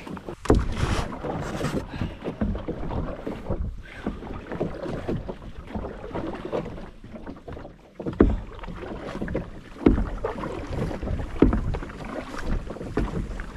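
Canoe being paddled through choppy water: a wooden paddle dipping and pulling, with water sloshing against the hull. A few dull knocks come through, near the start and several times in the second half.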